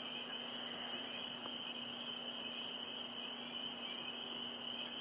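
Night chorus from a marsh: frogs and insects keep up a steady, unbroken high-pitched trilling, with a faint steady low hum beneath it.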